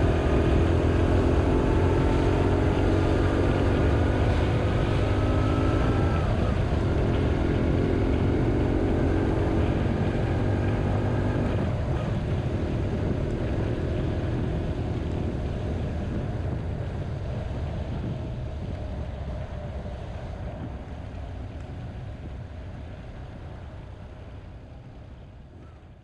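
BMW R1100RT's boxer twin engine running under way, its note climbing in pitch as the bike accelerates through the first half, over a steady rush of wind and road noise. The whole sound gradually fades out toward the end.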